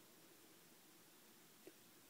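Near silence: faint room tone, with one small tick a little before the end.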